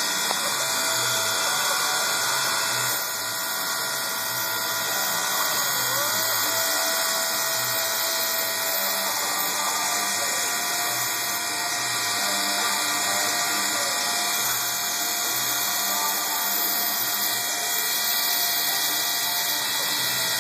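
Milling machine spindle running as an end mill cuts slots into a Delrin (acetal copolymer) plate: a steady machine whine and hiss, with a higher tone that comes and goes as the cutter works.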